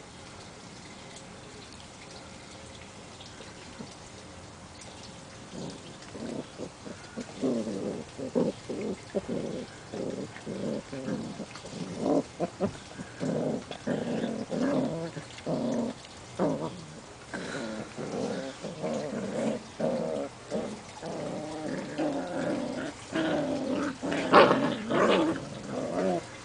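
Portuguese Water Dog puppies play-growling as they wrestle: short, rough growls in quick succession, beginning about six seconds in and loudest near the end.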